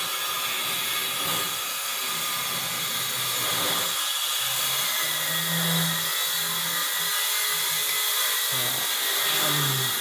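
A small motor or blower running steadily with a hiss, a low hum wavering underneath.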